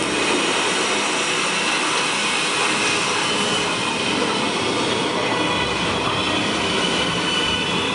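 Film soundtrack played through a theatre's speakers: a loud, steady rushing sound of heavy rain and surging sea.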